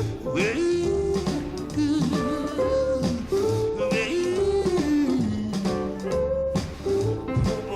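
Live electric blues band playing a repeating riff with guitar and drums, under a wailing lead line that slides up and down in pitch between sung verses.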